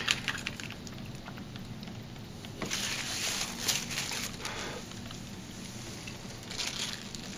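Faint eating sounds: a plastic spoon scooping beef ravioli in meat sauce from a foil MRE entree pouch, then soft chewing in several short patches, over a steady low hum.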